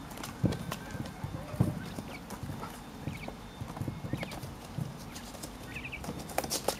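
Coturnix quail pecking at the end of a cucumber: irregular quick taps and knocks of beaks on the cucumber and the tray around it, with a few short high peeps.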